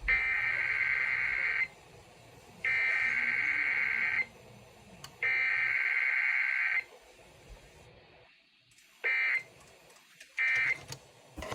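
Emergency Alert System SAME header tones: three identical bursts of warbling digital data tones, each about a second and a half long with about a second's gap between them, the coded header that opens an EAS test. Two shorter tone bursts follow near the end.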